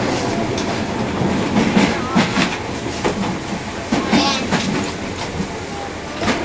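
Running noise of a Tobu 1800 series electric train heard from inside the end vestibule of motor car Moha 1839: steady rolling roar with the wheels clicking over rail joints every second or so, and a brief wavering squeal about four seconds in.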